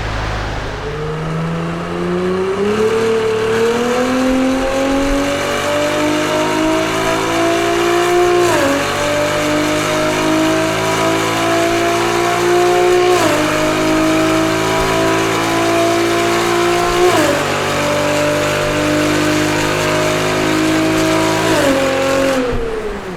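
Ferrari 296 GTS twin-turbo V6 with a full Capristo exhaust and catted downpipes in a full-throttle dyno pull. The revs climb through the gears with four quick upshifts, each dropping the pitch before it rises again, and the throttle closes near the end.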